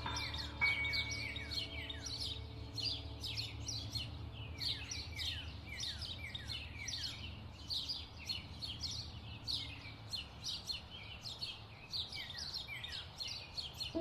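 Many small birds chirping: a dense, overlapping run of short, quick, downward-sliding chirps, several a second, over a low steady rumble. Instrumental music fades out in the first second.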